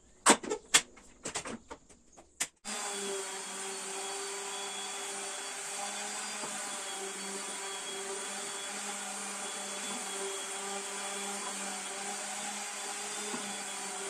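Pneumatic pin nailer firing several quick sharp shots into the wooden stool frame. Then, from about two and a half seconds in, a random orbital sander running steadily as it sands the frame.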